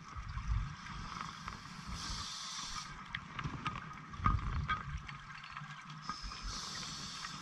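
Scuba diver breathing through a regulator underwater: a hiss of air on each inhale, about 2 s in and again near the end, alternating with a crackling rush of exhaled bubbles near the start and around 4 s.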